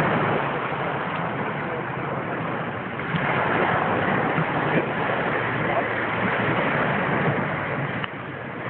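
Small waves breaking and washing over a pebble shore: a steady rushing hiss, a little louder from about three seconds in.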